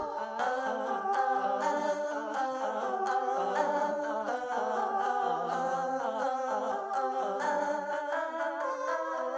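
Music from a song mashup, with several melodic lines layered over one another. The deep bass cuts out right at the start.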